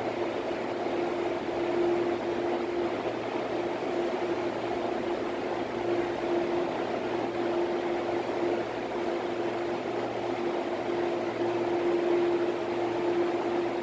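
Steady mechanical hum of station ventilation and air-handling equipment on an empty platform, with a constant mid-pitched tone and a fainter higher one over a level rushing noise.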